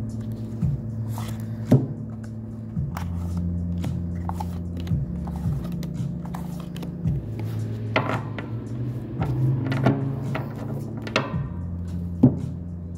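A deck of tarot cards being shuffled by hand, with short riffling swishes and sharp taps of the cards on a wooden table, over soft background music of low held notes.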